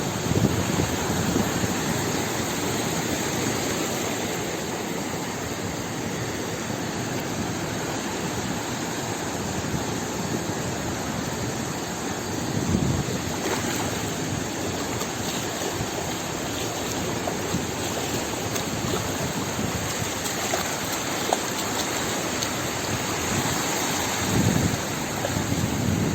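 Sea ambience: a steady rush of moving water and waves, with a louder surge about twelve seconds in and another near the end.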